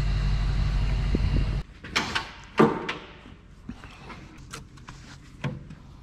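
A steady low rumble that cuts off abruptly about a second and a half in, followed by a handful of scattered knocks and clunks.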